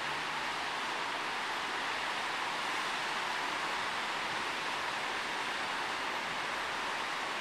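Steady road-traffic noise from cars idling and creeping through a jammed intersection, heard as an even hiss with no distinct horn or engine events.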